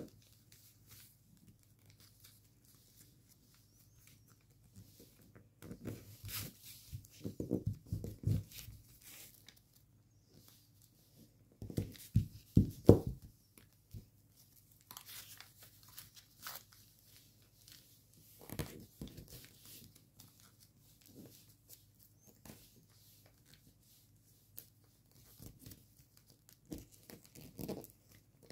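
Gold foil origami paper crinkling as fingers fold and crease small flaps. The crinkles come in short bursts with quiet gaps between, and the loudest comes about thirteen seconds in.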